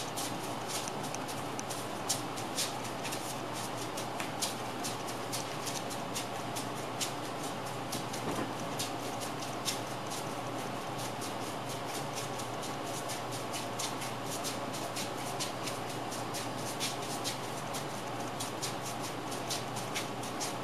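Many light, irregular clicks and taps, several a second, over a steady background hum and hiss.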